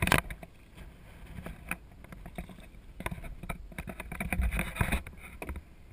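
Irregular knocks and clicks aboard a small flats skiff, with a loud knock at the very start and a cluster of low thuds and rumble about three to five seconds in.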